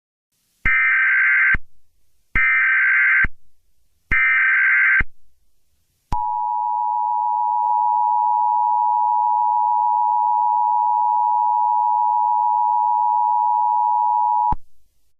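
Emergency Alert System SAME header: three short data bursts about a second apart, followed by the two-tone EAS attention signal held steady for about eight seconds, which announces an emergency broadcast.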